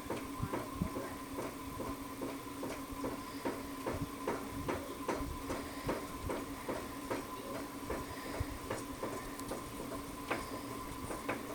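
52-inch white hugger ceiling fan running with a steady motor hum and an even, rhythmic ticking at about two to three ticks a second, the rhythm of a click once per turn of the rotating fan.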